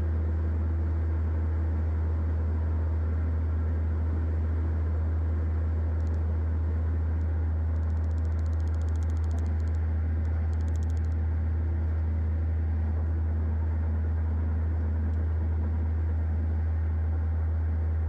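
A steady low test tone from a tone generator, played through a Toyota Tacoma's stereo at volume 10 and heard inside the cab over highway road noise. The level holds steady.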